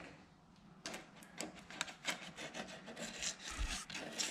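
Plastic card (a driver's licence) scraping and rubbing as it is worked through the narrow gap between a rear tyre's sidewall and the wheel-arch lip: a quiet, irregular run of short scratchy strokes starting about a second in. It is a clearance check, and the card only just skims through, so the wider tyre barely clears the guard lip.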